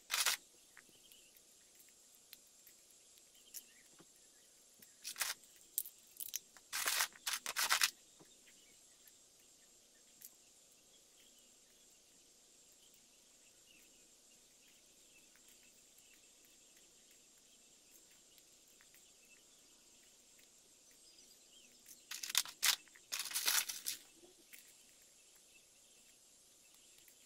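Hard plastic LEGO Technic pieces clicking and clattering as they are pulled apart and handled, in three short spells: right at the start, around five to eight seconds in, and again around twenty-two to twenty-four seconds in. Between the spells there are only a few faint clicks over a steady hiss.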